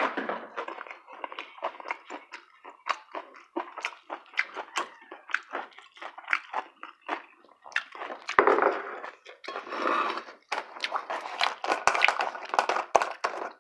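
Close-miked eating: a steady run of irregular, quick chewing and mouth clicks, with two longer noisy stretches about eight and ten seconds in.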